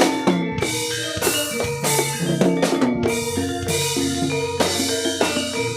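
Instrumental Javanese jaranan music played live: drums beating a busy rhythm under pitched percussion playing a running, repeating melodic pattern, with no singing.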